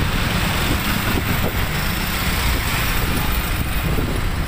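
Motorcycle engine running steadily while riding in city traffic, with road noise, heard from the rider's own bike.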